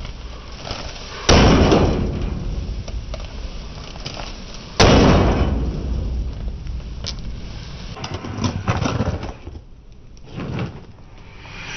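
A microwave oven being smashed: two loud bangs about three and a half seconds apart, each with a ringing tail, then a few smaller knocks and rattles.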